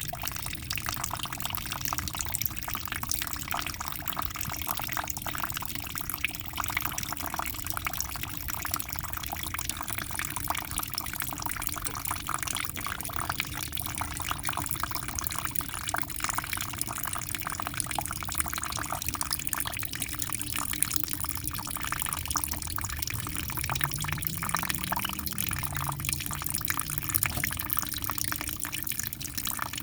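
Aquarium water splashing and bubbling steadily, a dense trickle of small splashes.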